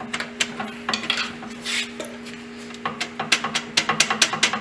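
Metal clinking and scraping from the sheet-steel chip guard and cross feed screw of a Bridgeport milling machine being handled during disassembly. Scattered clicks and scrapes come first, then a quick run of sharp clicks, about six a second, through the second half.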